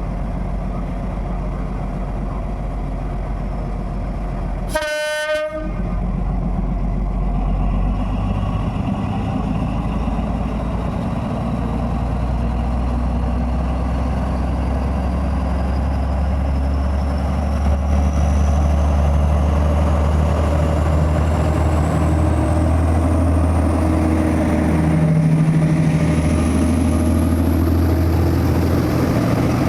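Alsthom diesel-electric locomotive running in with its train: a short horn blast about five seconds in, then a steady low engine rumble that grows louder as the train draws nearer.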